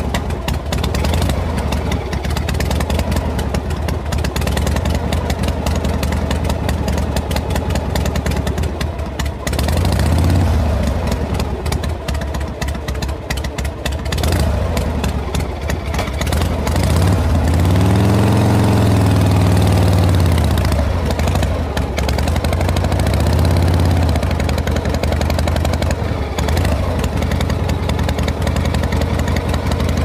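Motorcycle engine running at low speed. Its pitch rises and falls as it is revved a few times, most strongly a little past the middle.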